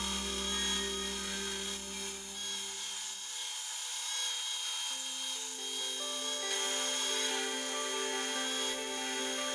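Sandpaper rubbing against a pine workpiece spinning on a wood lathe, a steady sanding hiss, under background music of held notes that change a few times.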